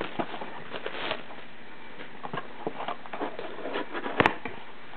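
Hands working open a cardboard Upper Deck Goodwin Champions blaster box: scattered light scrapes, rustles and taps of cardboard, with one sharp snap about four seconds in.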